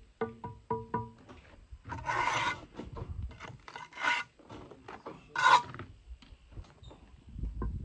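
Steel mason's trowel scraping excess mortar off the joints of a concrete block wall, in three main strokes, the loudest about five and a half seconds in.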